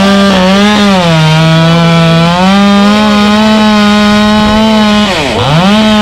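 Stihl 462 chainsaw running at high revs under load in a cut through mango wood. Its pitch sags about a second in as the chain bites, then near the end the throttle drops off sharply and is opened back up.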